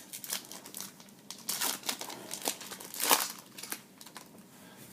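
Wrapper of a Bowman Chrome trading-card pack crinkling and tearing as it is opened, in irregular rustling bursts, loudest about a second and a half and three seconds in.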